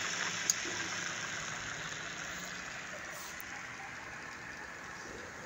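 Sanches Blanes geared pillar drill running with no load: a steady whir from the motor and gearbox that gradually gets quieter, with one sharp click about half a second in.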